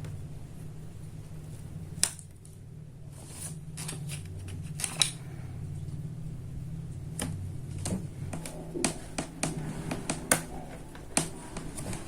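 Packaging of a laptop RAM module being pried open by hand: scattered sharp clicks and cracks, coming thicker in the last few seconds. A low steady hum underneath stops about eight seconds in.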